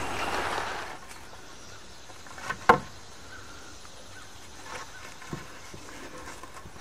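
A noisy rustle that cuts off about a second in, then a single sharp knock a little later over a quiet outdoor background.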